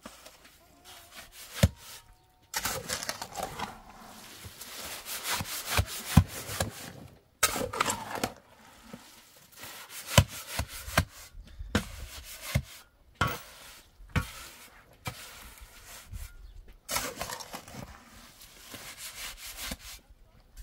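Hand tools scraping and rubbing over a rough surface in long stretches, with sharp knocks between them.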